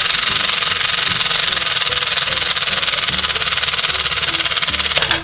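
Battery-operated toy toaster playing its electronic toasting sound effect, a steady hissing buzz, while its timer runs. It cuts off suddenly about five seconds in, as the timer finishes.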